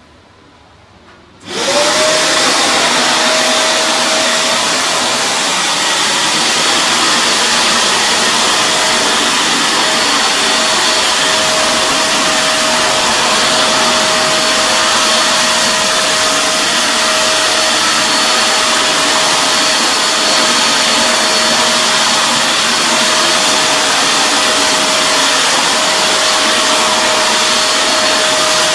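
Alpha Living KEA0300 1200 W wet/dry vacuum cleaner switched on about a second and a half in, then running steadily with a constant whine while it sucks up water.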